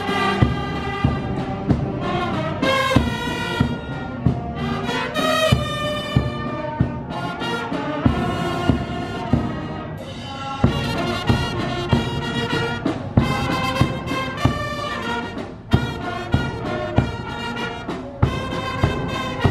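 Brass band playing a tune on trumpets and trombones over a steady drum beat.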